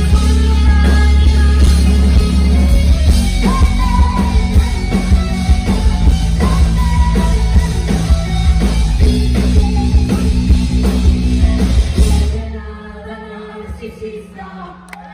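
Live rock band, with electric guitar, bass guitar and drums, playing loud; the song ends abruptly about twelve seconds in, leaving a held low note ringing.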